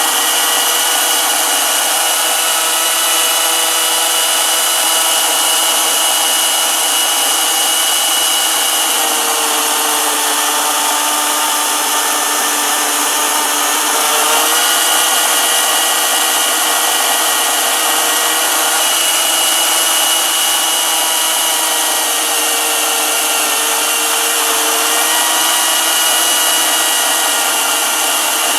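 Battery-powered Greenworks electric chainsaw running steadily while cutting through an oak limb. Its motor pitch sags twice, for several seconds each, as the chain is loaded in the cut.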